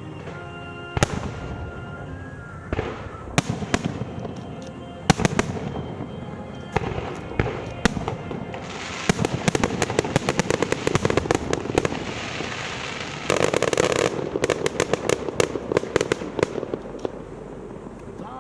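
Aerial fireworks: single loud bangs of shells bursting, then two long, dense runs of rapid crackling reports about halfway through.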